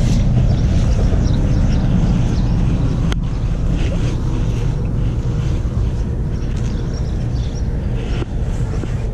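Vehicle engine idling with a steady low rumble, and a single sharp click about three seconds in.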